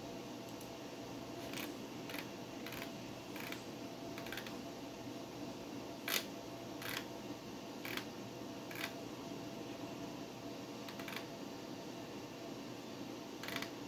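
Desktop PC's steady fan hum with about a dozen irregular sharp clicks, the loudest about six seconds in, typical of the hard drive seeking while the operating system installs devices.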